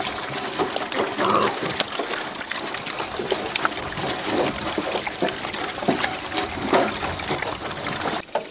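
Water trickling and splashing at a cattle drinker as cows drink, with many small splashes and clicks throughout.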